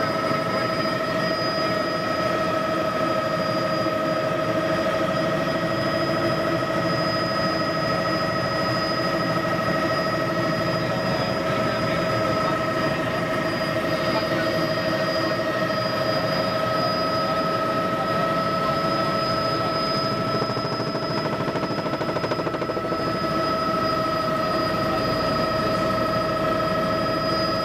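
Helicopter in flight heard from inside the cabin: a steady, loud drone with a constant high whine over it.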